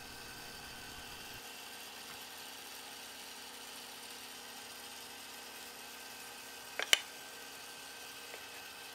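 Steady faint whirring room hum, with two quick sharp wooden clicks about seven seconds in as the mahogany lid is handled against the box.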